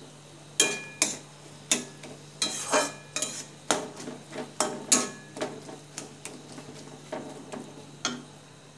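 Metal spatula scraping and knocking against a metal kadai while stirring mashed potato and onions as they fry, about two strokes a second. Some strokes give a brief metallic ring, over a faint steady low hum.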